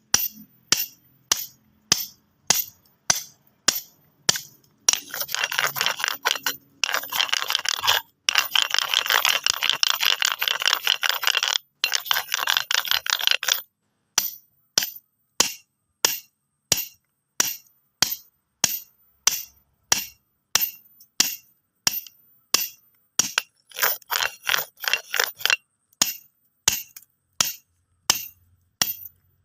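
Stones knocked together in a steady rhythm, about one and a half sharp clacks a second, broken by fast rattling runs of clicks as they are rubbed or jostled together: a long run in the first half and a short one later on.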